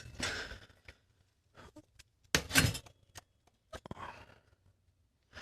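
Scattered light clicks and clinks of metal bike parts and tools being handled, with a brief scrape about two and a half seconds in.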